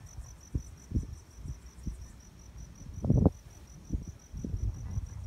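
An insect chirping steadily, about four short high chirps a second, over irregular low thumps and rumbles, the loudest about three seconds in.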